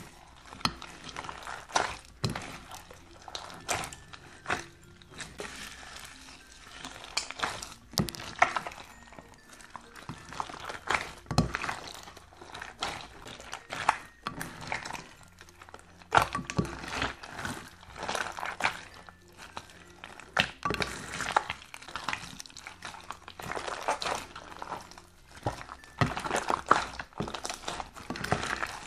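Clear glitter slime packed with foam beads being squeezed and kneaded by hand in a glass dish: irregular wet squelches, pops and crackles as air pockets burst and the beads crunch.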